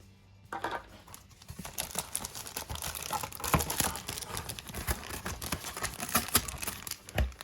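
Packaging being crinkled and torn open by hand as a toy cash register set is unboxed: a dense run of irregular crackles and clicks that starts about half a second in, with a low thump near the end.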